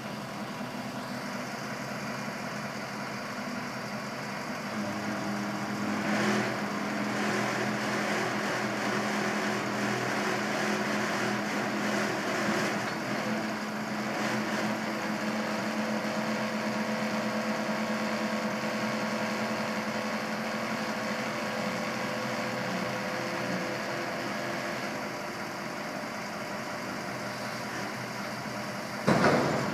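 Ford LN8000 hook truck's engine running to drive the Palfinger hooklift's hydraulics as a roll-off dumpster is jibbed back in and lowered onto the truck. The engine note steps up about five seconds in, and there is a loud clank near the end as the container comes down onto the frame.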